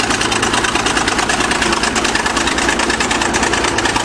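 1953 International TD-20 crawler bulldozer's diesel engine running steadily and loudly with a fast even pulsing.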